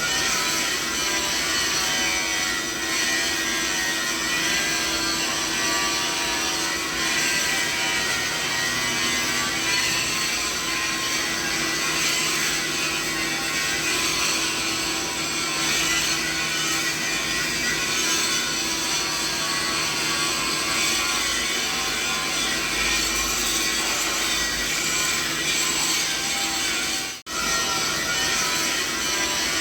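Continuous mixed machinery noise used as a tinnitus masking sound: a dense, even whirring hiss, mostly high-pitched, laced with several steady whining tones over a low hum. It cuts out for an instant about 27 seconds in, where the recording loops.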